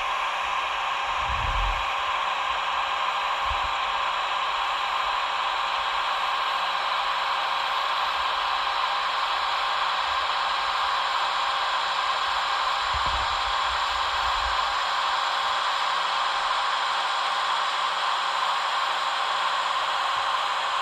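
Steady whirring hiss from a Roco H0 model EDK 750 railway crane as its upper body slews round, with a few soft low thumps.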